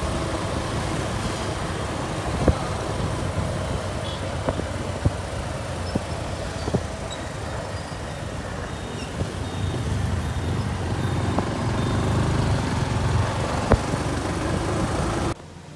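Steady wind and road noise from riding a motorcycle, with the bike's engine running underneath and a few sharp knocks along the way. The sound drops off abruptly near the end.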